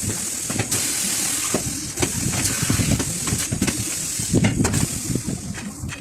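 Steady hiss of compressed air, with scattered knocks and clatter of tyre and machine work; the hiss fades near the end.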